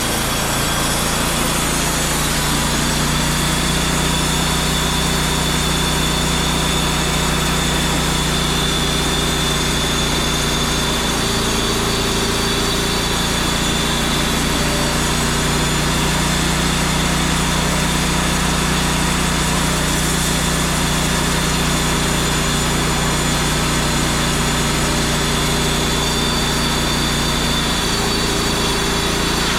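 Wood-Mizer portable band sawmill's engine running steadily at a constant pitch.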